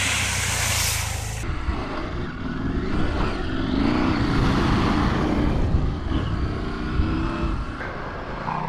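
A trail motorcycle splashes through a deep puddle, with a hiss of water spray for about the first second and a half. Then an off-road motorcycle engine runs on a muddy dirt track, its revs rising and falling.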